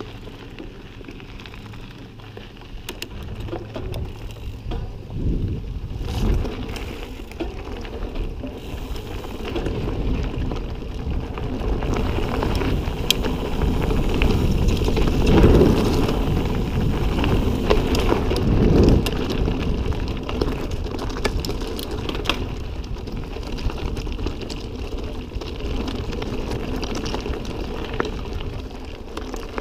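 Ibis Ripley full-suspension mountain bike ridden fast over dirt and rocky singletrack: tyres crunching and a steady clatter of small knocks and rattles from stones, chain and frame. Wind rumbles on the microphone. The noise builds as the descent gets rougher and is loudest about halfway through.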